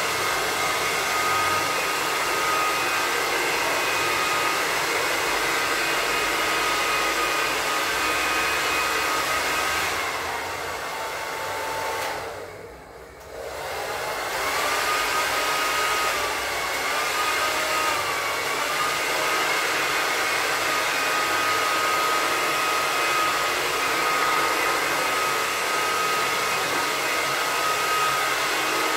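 Corded handheld hot-air blower (heat gun) on its cold-air setting running steadily, a whining motor under the rush of air, blown over freshly poured liquid floor coating to spread the pigment. About ten seconds in it winds down almost to a stop, then spins back up a few seconds later, its pitch wavering before settling.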